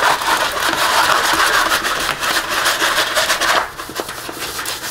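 Rubbing and scraping as a diamond painting canvas is handled and turned over: a dense run of quick scratchy strokes that eases off sharply about three and a half seconds in.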